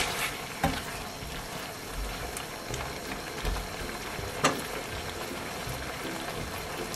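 Kimchi tteokbokki sauce bubbling and sizzling in a frying pan as a spatula stirs it, a steady hiss with two sharp clicks, one about half a second in and one a little past the middle.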